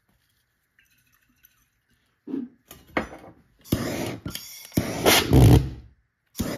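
Methanol-fuelled jam jar pulse jet lit with a torch, firing in a few uneven bursts rather than running steadily, the longest and loudest about five seconds in, then one last short pop near the end: a finicky jar that fires briefly but won't sustain.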